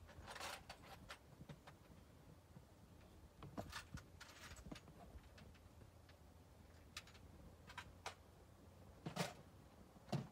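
Faint footsteps and rustles on dry grass and leaves, a few soft steps and light knocks scattered through otherwise near silence.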